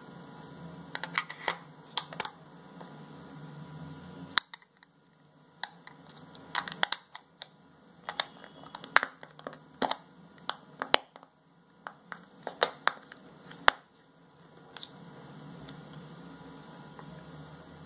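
Hands handling a Sony FDR-X3000 action camera as its battery is fitted and it is switched on: a scattered series of sharp plastic clicks and small knocks. A low hum runs under the first few seconds and again near the end.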